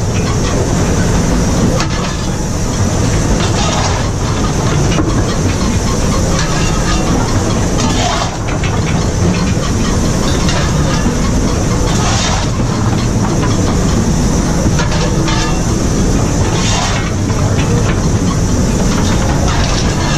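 Cab noise of an LNER Class A4 steam locomotive on the move, a loud steady rush of running noise and steam hiss. A coal shovel scrapes into the tender and throws into the firebox, with a scrape-and-throw about every four seconds as the engine is fired by hand.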